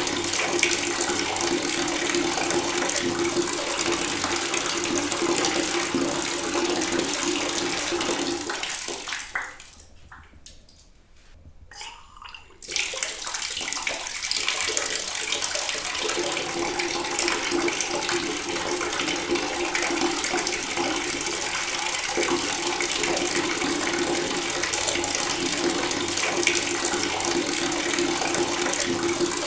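Water running from a tap in a steady rushing stream. About nine seconds in the flow dies away, and about three seconds later it comes back suddenly at full strength.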